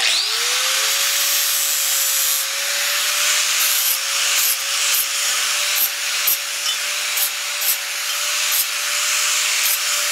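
Electric angle grinder spinning up and running at a steady whine, its abrasive disc grinding the burr off the chop-saw-cut end of square steel tubing, with repeated sharper scrapes as the disc bites the edge.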